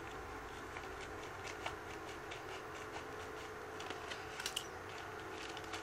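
Scissors snipping along the edge of a plastic mailing envelope: a series of short, crisp cuts, with a quick cluster of them about four and a half seconds in.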